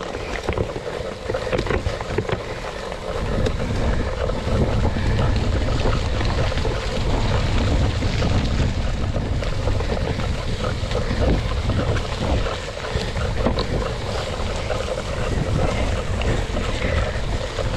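Wind buffeting a GoPro's microphone on a cyclocross bike being raced over rough ground, with a steady run of clicks and knocks from the bike. The wind rumble grows louder about three seconds in.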